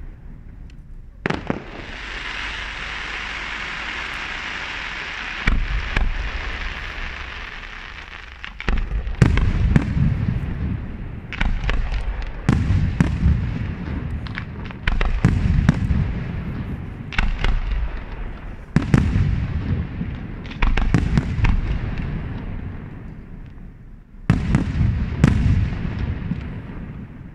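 Aerial fireworks display: a sharp bang about a second in, then a steady hiss for several seconds, then from about nine seconds on a rapid series of heavy booms as shells burst, roughly one or two every second.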